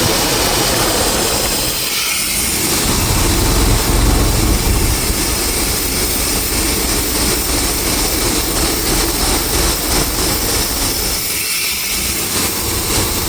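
Chevrolet throttle-body-injected V8 idling, with an aerosol can of brake cleaner hissing as it is sprayed along the intake gaskets to find a vacuum leak. The hiss and engine dip briefly about two seconds in and again near the end.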